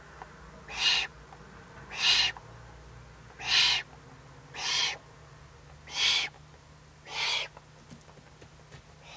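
Young Eurasian eagle-owl giving a series of hoarse, hissing calls, about one every second and a half, the last one fainter: the rasping begging call of an owlet.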